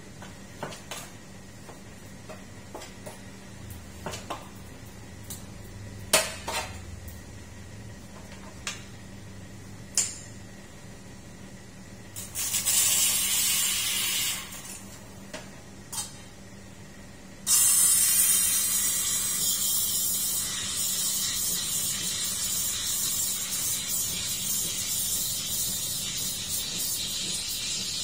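Espresso machine steam wand hissing: a short blast of about two seconds partway through, then steady steam hiss for the last ten seconds. Before it, ceramic cup and metal milk pitcher clinks.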